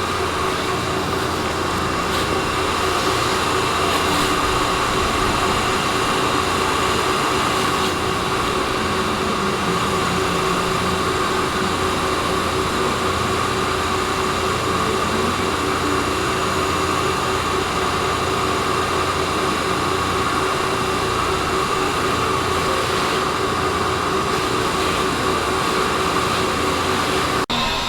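Metalworking shop machinery running steadily: a continuous mechanical noise with several steady whining tones held at an even pitch.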